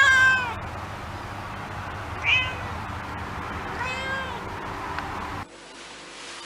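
Domestic cat meowing three times: a loud meow at the start, a short one a little past two seconds, and a longer falling one about four seconds in. The sound drops suddenly to a quieter background near the end.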